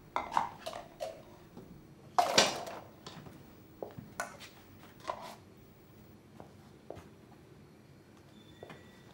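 Kitchen handling noises: scattered knocks and clatter of things being picked up and set down, with a louder rustling rush about two seconds in.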